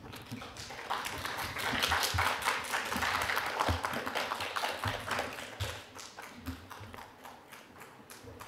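Audience applauding: dense clapping that swells about a second in and fades over the last few seconds.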